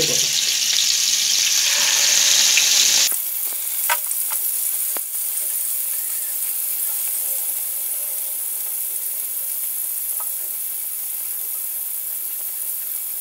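Hilsa steaks frying in hot soybean oil in a nonstick pan: a steady sizzle, loud at first, then dropping suddenly about three seconds in to a softer, even sizzle with a few sharp pops.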